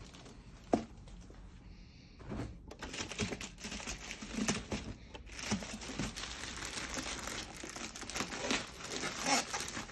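Plastic poly mailer bag crinkling and tearing as it is handled and ripped open by hand, the crinkling dense and continuous from about two seconds in. A single sharp knock comes just under a second in.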